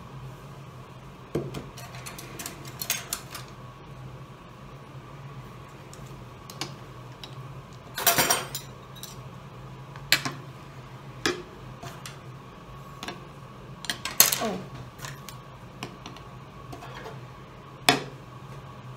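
Bowls, metal spoons and wooden chopsticks being set down on a wooden table: scattered clinks and knocks, the loudest about eight seconds in and around fourteen seconds, over a faint steady hum.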